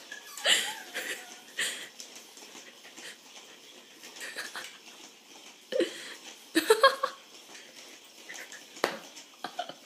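A small dog giving short huffs and yips at a weasel toy on a rolling ball, in a handful of brief sharp bursts, the loudest pair about two-thirds of the way through.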